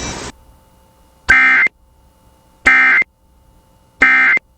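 Emergency Alert System End of Message tones: three short, identical bursts of buzzing SAME digital data, about 1.4 seconds apart, signalling the end of the alert. A radio hiss cuts off just before the first burst.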